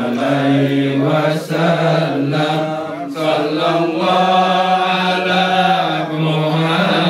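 Chanting voices, the notes long and held, gliding slowly up and down with only brief breaks.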